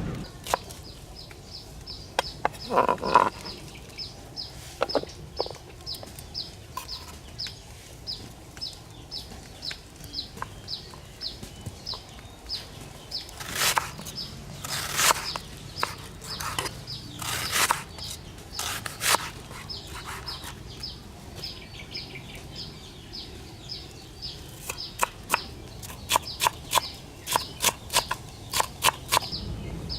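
Chickens clucking, over a high chirp that repeats a few times a second, with scattered sharp knocks and a quick run of knocks near the end.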